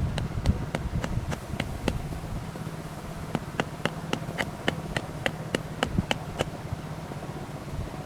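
A rapid, even series of sharp knocks, about four a second, which stops about six seconds in, over low wind rumble on the microphone.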